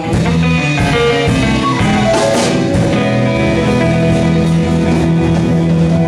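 Live band playing a bluesy rock instrumental passage, with guitar over drums and a sustained low note.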